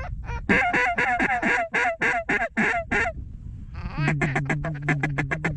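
Mallard-style duck quacking: a rapid run of falling-pitch quacks for about two and a half seconds, then after a short pause a second, faster run of quacks over a steady low drone.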